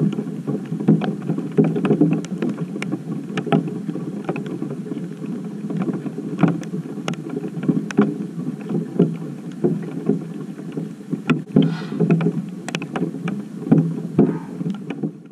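Hail and rain striking a GoPro's housing and a wooden deck: a dense, steady drumming pricked with many sharp ticks from individual stones. It fades out near the end.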